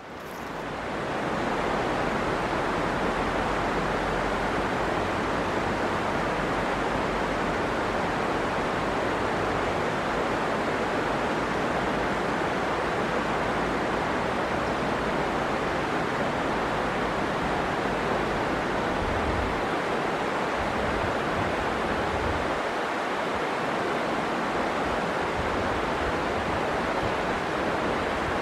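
Steady rushing of flowing river water, fading in over the first second or so.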